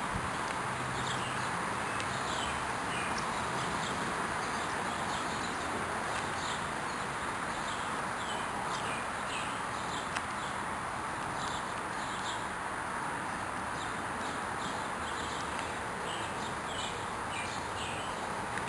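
Small birds chirping in many short, quick calls, over a steady background hiss.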